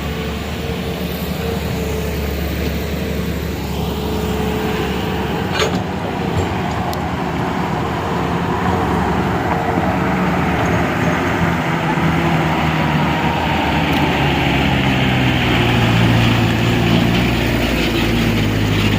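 A large vehicle engine running continuously, its note rising and growing a little louder about three-quarters of the way through.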